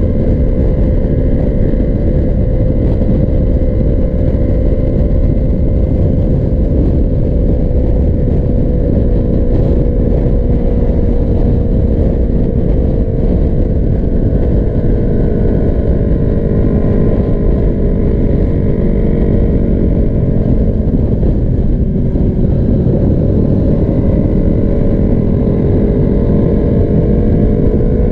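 Sport motorcycle's engine droning steadily at highway cruising speed under heavy wind rush on the mounted camera's microphone. The engine note sinks slightly about two-thirds of the way through, then rises again.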